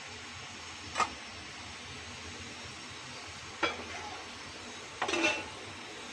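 Stainless steel strainer plate and steel dish knocking together: a sharp metallic clink about a second in, another after three and a half seconds, and a short rattle of clinks with a ringing note near the end, over a steady low hiss.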